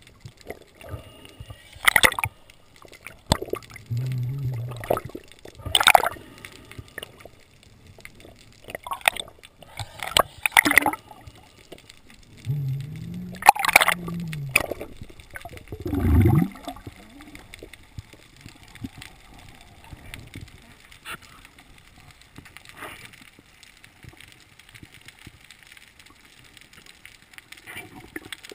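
Underwater sound heard through a camera housing: water gurgling, with a scatter of sharp clicks and knocks and a few short low gurgles in the first half, then quieter.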